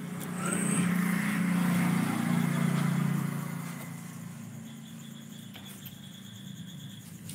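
A motor vehicle engine running over a steady low hum. It swells louder about half a second in and fades back down after about three seconds.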